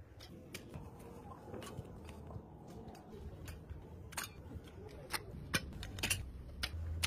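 Scattered sharp clicks and light clinks, denser in the second half, from stainless steel plates and dough being handled, over a low steady rumble.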